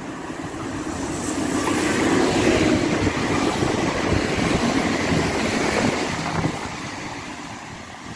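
Irish Rail 22000 Class InterCity diesel multiple unit passing at speed on the near track. Its engine and wheel-on-rail noise builds up, holds loud for several seconds as the carriages go by, then fades as it draws away.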